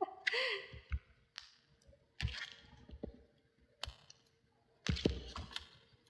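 Faint scattered clicks and short soft rustles close to a phone's microphone, over a faint steady hum.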